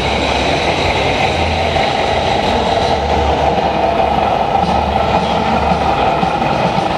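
Radio-controlled MAN race truck model driving: a steady mechanical rumble that swells and eases, over a constant background hum.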